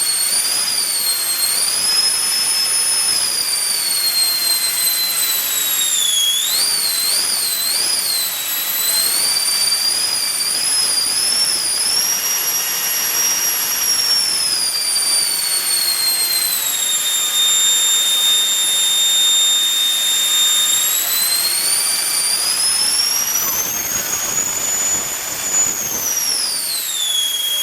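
A 120 mm all-metal electric ducted fan on a 14S battery runs under power: a high whine over a rush of air, its pitch following the throttle. About a quarter of the way in come four quick up-and-down throttle blips; around the middle the pitch slides down, and later it climbs again before falling near the end.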